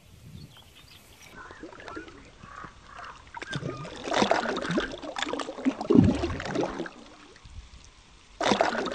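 Water splashing and sloshing as a pike is handled in shallow water, loudest from about four to seven seconds in. Near the end a louder sound cuts in as the outro music begins.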